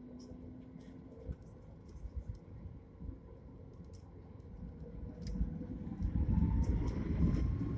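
Jet airliner's engines spooling up for the takeoff roll, heard inside the cabin: a low rumble that grows steadily louder from about five seconds in, with a faint rising whine. Scattered light clicks are heard throughout.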